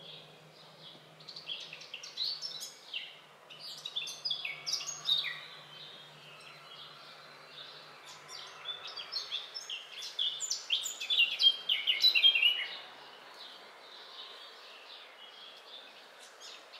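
A songbird singing: rapid, varied chirps and short sliding notes in two bouts, the second, about eight seconds in, the louder.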